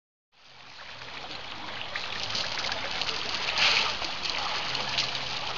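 African elephant splashing in a shallow pool, spraying water over its back with its trunk and sloshing with its legs: a steady patter and hiss of falling water with scattered spatters and one louder splash about three and a half seconds in.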